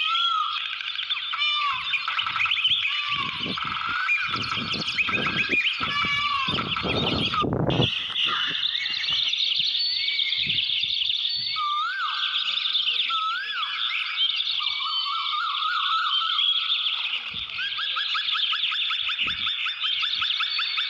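Many birds chirping and singing at once, with rapid repeated rising-and-falling notes. Low rumbles come and go in the first half.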